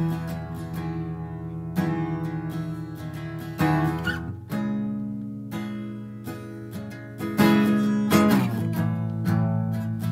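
Solo acoustic guitar playing, chords picked and strummed and left to ring, with a new chord struck every second or two.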